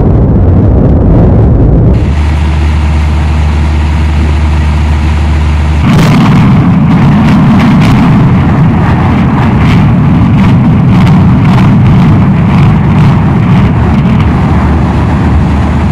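Loud rumble of a concrete high-rise tower collapsing in a controlled demolition. A steady low drone runs through the first few seconds, and from about six seconds in the rumble grows, with many sharp crackles.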